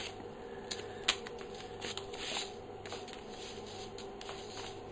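A sheet of paper being cut along a pencil line on a wooden floor: faint scratching and rustling of paper, with a few small clicks and ticks.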